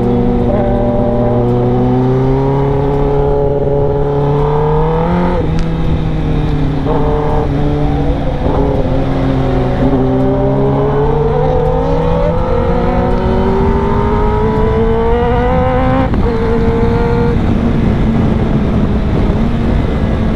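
Inline-four sportbike engine running on the move, its note climbing slowly under load and stepping down at a few gear changes, about five, twelve and sixteen seconds in.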